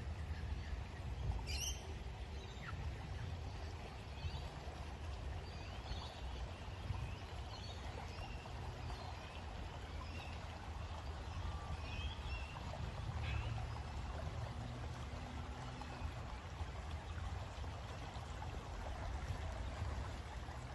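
Outdoor ambience: a steady rushing noise with a low, uneven rumble, and short bird chirps scattered through it.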